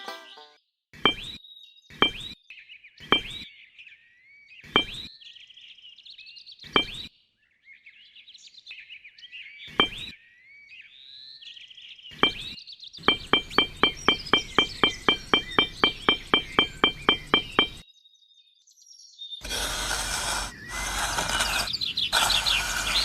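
Light tapping blows, likely a hammer driving small nails into wood: single taps a second or two apart, then a fast even run of about five taps a second for some five seconds. Birds chirp throughout, and a rough burst of noise fills the last few seconds.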